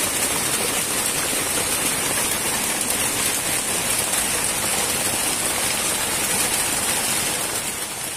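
Heavy rain pouring down steadily, a dense even hiss, which begins to fade out near the end.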